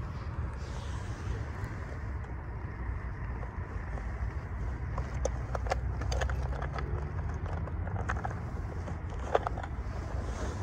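Steady low outdoor rumble, with a cluster of light clicks and ticks in the middle and one sharper click about nine seconds in.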